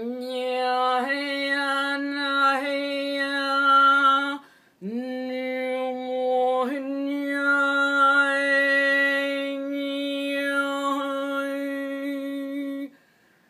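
A woman's voice toning: long sustained notes held on one steady pitch, the vowel sound slowly shifting. There are two long held tones with a short breath break about four and a half seconds in, and a brief upward scoop near the start of the second.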